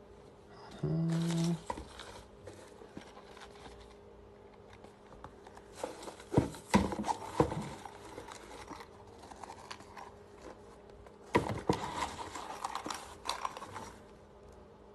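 Handling of a zippered pulse-oximeter case and shredded-paper packing filler in a gift box: crinkling and rustling in two stretches, with a few sharp clicks and knocks in the middle. A short steady low hum sounds about a second in.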